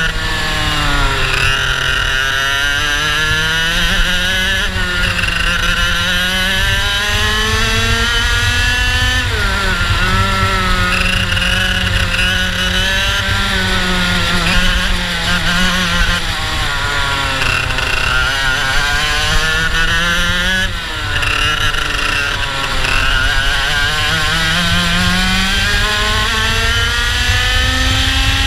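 IAME two-stroke kart engine of a Tonykart racing kart at full throttle, its pitch climbing steadily on each straight and dropping sharply when the driver brakes for the corners, several times over, with a steady low rumble underneath. It climbs highest on the straight near the end.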